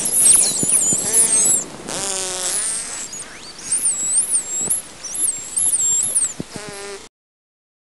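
Dolphins vocalising: high whistles that rise and fall, some repeated in looping shapes, mixed with buzzy squawks and scattered clicks. The sound cuts off about seven seconds in.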